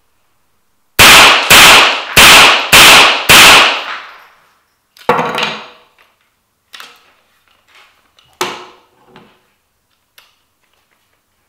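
Five quick shots from a Southern Gun Co W22 .22 rimfire semi-automatic AR-style rifle, starting about a second in at roughly two shots a second, each ringing in the room. After them come several metallic clunks and clicks as the magazine is taken out and the rifle is handled.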